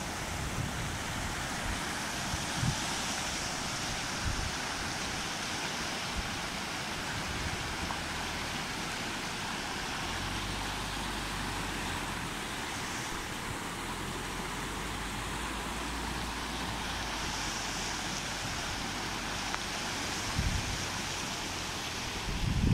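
Fast-flowing mountain river rushing steadily, with wind buffeting the microphone in low thumps now and then, strongest near the end.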